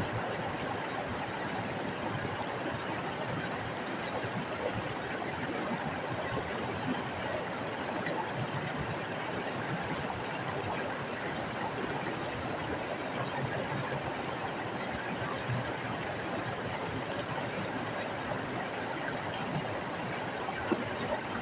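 Small rocky stream, water rushing and splashing over stones in a steady, even wash.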